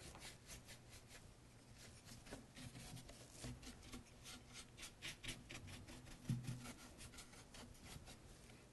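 Faint, scratchy strokes of a chip brush dry-brushing glaze onto a picture frame, the dry bristles rubbing across the raised detail in quick runs. A soft low knock about six seconds in.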